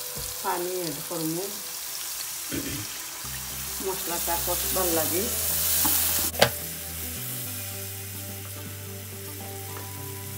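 Food sizzling in a frying pan while being stirred, with one sharp clack of a utensil against the pan about six seconds in.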